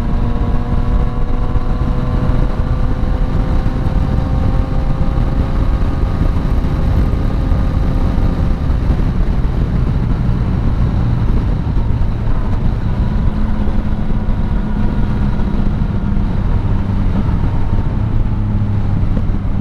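Yamaha Tracer 900's three-cylinder engine with an Akrapovic exhaust, running steadily under way. Its pitch slowly falls over the first half and then holds steady, over a constant rush of wind and road noise.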